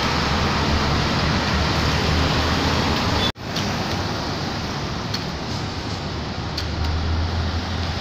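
Steady road traffic on a busy city street: an even hiss of passing vehicles over a low engine rumble that grows toward the end as vehicles approach. The sound breaks off for an instant about a third of the way in.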